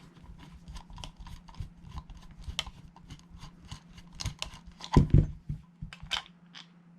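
Screwdriver backing out the Phillips screw in the bottom of a GHK G5 airsoft rifle's pistol grip: a run of small, quick, irregular clicks, with a louder knock about five seconds in.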